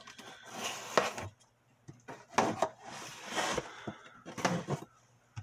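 A cardboard box being cut open with a liner-lock folding knife: several rasping strokes of the blade slitting along the box, with a sharp knock about a second in and the cardboard scraping as the box is handled.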